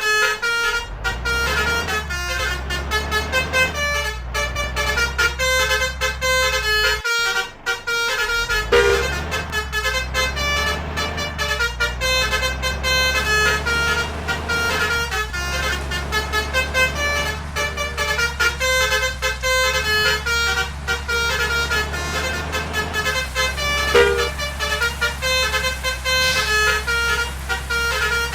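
Bus 'telolet' basuri musical air horns playing melodies note after note, over the low, steady running of a bus engine. The sound drops out briefly about seven seconds in.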